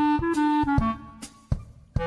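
Background music: a bouncy melody of short held notes played over a beat.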